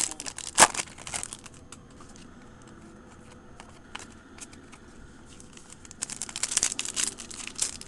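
Foil wrapper of a trading-card pack crinkling and tearing as it is pulled open, with one sharp, loud crackle about half a second in. It falls to a few faint ticks for several seconds, then the foil crinkles again near the end as the next pack is handled.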